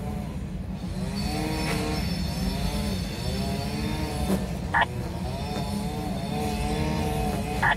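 Loaded autorack cars of a freight train rolling past: a steady rumble of wheels on rail, with a wavering squeal of wheels rising and falling and brief sharper screeches twice, about five seconds in and near the end.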